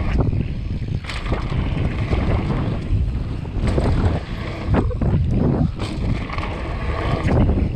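Downhill mountain bike ridden fast over a rough gravel trail: wind buffeting the microphone, tyres rumbling on loose stones, and the bike clattering and rattling over bumps, with repeated sharp knocks.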